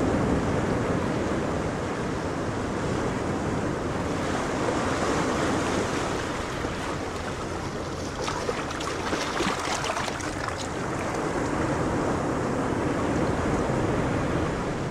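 Water rushing and splashing: a steady wash of water noise, with a crackling spell of splashes in the second half.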